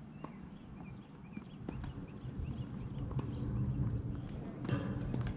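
Tennis balls being struck and bouncing on a hard court, a scatter of sharp pocks, over a steady low rumble, with small birds chirping repeatedly. A brief rush of noise comes near the end.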